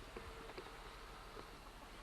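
Hens making a faint, drawn-out low call with a few soft clicks, over a steady hiss from the VHS camcorder's recording.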